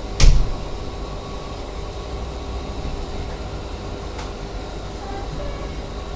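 Steady low hum of running aquarium equipment, with one loud thump about a quarter of a second in and a faint click about four seconds in.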